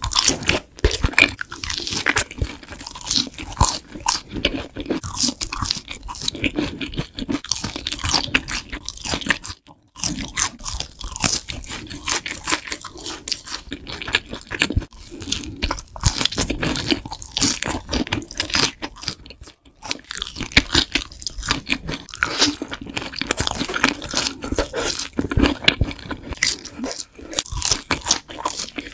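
Close-miked crunching and chewing of crispy, seasoning-coated fried food: dense crackling bites of fried sticks and cheese balls. The crunching breaks off briefly twice.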